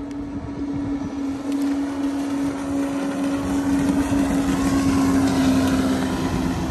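Jet ski engine running at speed with a steady hum as the craft passes close by. It grows louder to a peak about five seconds in, then begins to fade.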